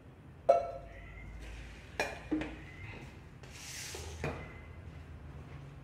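Metal clinks and knocks from a steel oil jug being handled and set down beside a kadai on the stove. One sharp knock with a ringing tail comes about half a second in, followed by a few lighter knocks and a short hiss midway.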